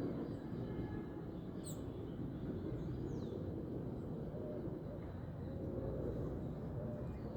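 Outdoor ambience: a steady low rumble with a few brief high bird chirps, a pair of quick ones near two seconds in and a single falling call about three seconds in.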